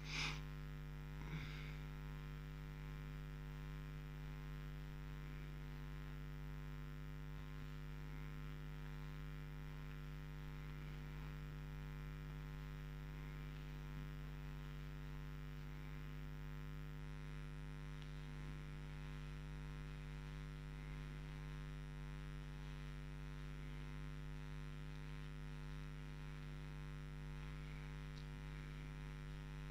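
Steady electrical mains hum, with two soft clicks in the first second and a half.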